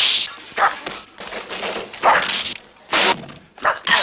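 Exaggerated, dubbed film punch and slap sound effects: about five sharp hits in quick succession, a second or less apart.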